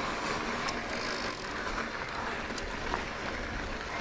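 Mountain bike rolling over a rocky dirt trail: a steady hiss of tyres and wind on the microphone, with scattered small clicks and rattles.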